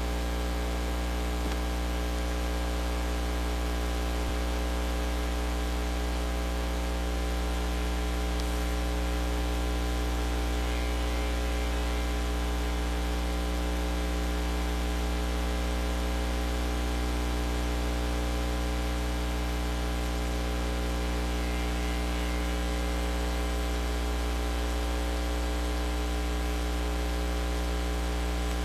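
Steady electrical mains hum, a low tone with a stack of buzzing overtones, over a constant layer of hiss, with no other sound.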